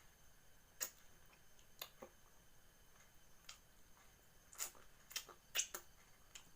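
Scattered soft clicks and ticks of someone eating, handling the fish and food, about eight to ten irregular ones with a small cluster in the second half, over a faint steady high-pitched hum.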